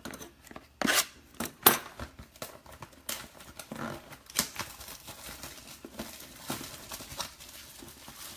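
Trading-card boxes being opened by hand: plastic wrap tearing and crinkling and cardboard being handled, with a run of sharp clicks and snaps, the two loudest about one and nearly two seconds in.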